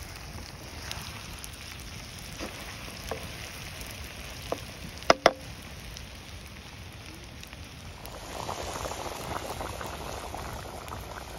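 Eggs and potato chunks frying in oil in a pan over a wood fire, a soft steady sizzle with a few small pops and two sharp knocks about five seconds in. About eight seconds in, the sound thickens into the bubbling of the egg curry at the boil once liquid is in the pan.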